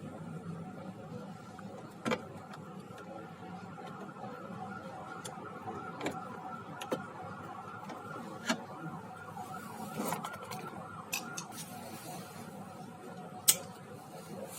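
Scattered clicks and knocks of plastic and metal washing-machine parts being handled and refitted, over a steady background hum. The loudest knock comes near the end.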